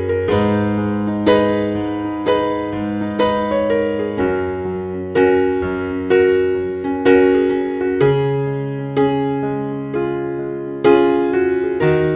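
Background music: a slow piano piece, chords struck about once a second and left to ring, over a low bass note that changes every few seconds.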